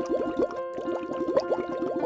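Muddy water gurgling rapidly as it drains down a whirlpool vortex, under background music with held notes.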